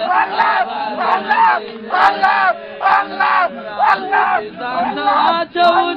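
A crowd of men chanting a devotional refrain together in loud, rhythmic bursts, with sharp percussive hits about once a second.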